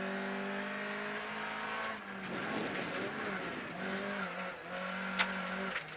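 VW Golf GTI rally car's engine heard from inside the cabin, held at high revs at a fairly steady pitch while driving flat out on a gravel stage. There is a rush of rougher gravel and tyre noise about two seconds in, brief dips in engine pitch about four and six seconds in, and one sharp click a little after five seconds.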